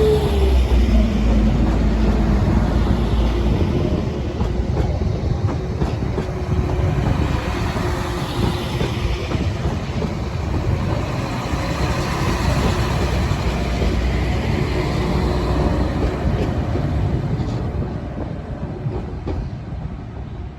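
A train running past on the line: a steady, loud rumble of wheels and running gear on the rails, with a brief falling whine at the start, fading over the last few seconds as it moves away.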